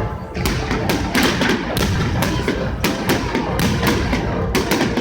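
Fireworks going off in quick succession: a rapid run of bangs and thuds, several a second, over a continuous low rumble.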